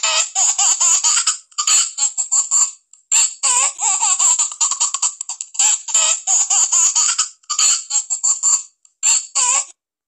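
High-pitched laughter in quick, repeated bursts with short breaths between bouts, stopping near the end.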